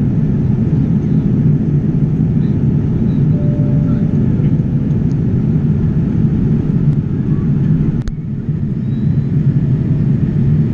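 Steady cabin noise of a Boeing 787 Dreamliner airliner in flight, a low rumble of engines and airflow with a fainter hiss above it. A single sharp click comes about eight seconds in.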